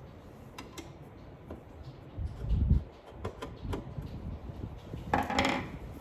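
Hands working on a rackmount NAS's metal case: scattered small clicks, a low thud about two and a half seconds in, and a short scraping rustle about five seconds in.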